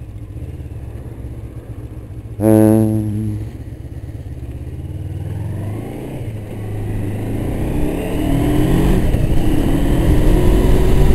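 Honda CB500 motorcycle engine and wind noise heard from a helmet camera. A loud pitched tone sounds for about a second a little over two seconds in. From about halfway the engine pitch rises and the sound grows louder as the bike accelerates.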